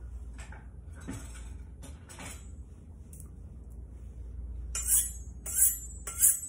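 A German chef's knife being stroked along a honing steel: three quick metallic scrapes with a bright ring, about half a second apart, starting about five seconds in. Before that there are only faint light knocks.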